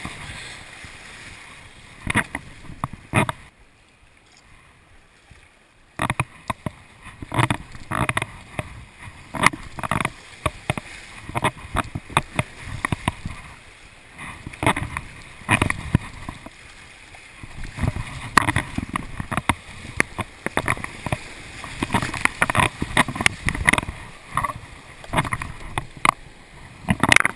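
Whitewater rapids rushing around a kayak, broken by frequent sharp splashes as paddle strokes and waves slap the water and the hull. A few seconds in it drops quieter for about two seconds, then the splashing returns abruptly.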